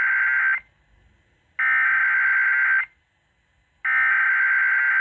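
Emergency Alert System SAME header on a radio broadcast: harsh warbling bursts of digital data tones, about a second each with about a second of silence between them. The tail of one burst is followed by two full ones. The header encodes a tornado warning that is about to be read.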